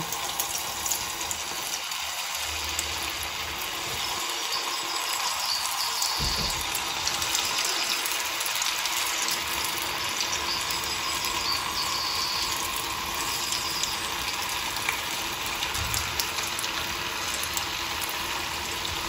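Batter for an encytus, a Roman fritter, sizzling steadily with a fine crackle as it trickles from a funnel into hot oil in a frying pan.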